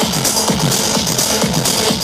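Techno played loud over a festival stage sound system, heard from among the crowd: a steady kick drum about twice a second with hi-hats between the beats.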